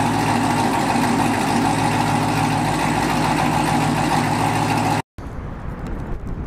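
2021 Chevrolet Camaro 1LE idling steadily through a catless 3-inch mid pipe, X-pipe and AWE Track axle-back exhaust with quad tips, a loud, even note. About five seconds in it cuts off suddenly, giving way to a much quieter outdoor background.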